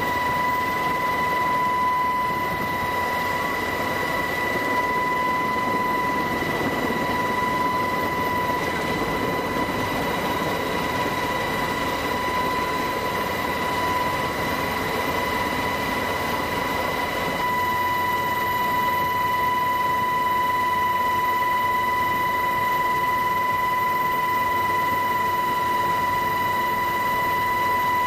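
Steady aircraft noise heard from on board: a constant high whine over an even rushing hum.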